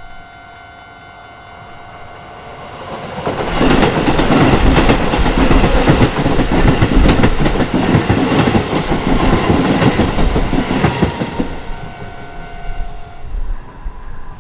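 Keisei Main Line train passing over a level crossing: a loud rumble with wheels clacking over the rail joints, rising about three and a half seconds in and fading after about eleven seconds. The crossing's warning bell rings steadily throughout and stops about a second before the end.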